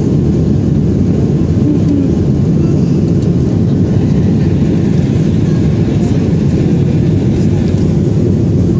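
Steady cabin noise of a Boeing 737-800 in flight: an unbroken low rush of jet engines and airflow, heard from inside the passenger cabin.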